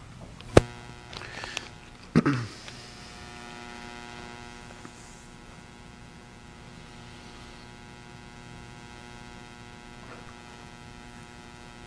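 A dry-erase marker briefly squeaking and tapping on a whiteboard, with a sharp click about half a second in and a heavier knock around two seconds. After that a faint steady electrical hum of several tones.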